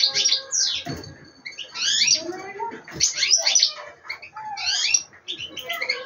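Small songbird singing in short bursts of quick, twittering chirps that rise and fall in pitch, several phrases with brief pauses between them.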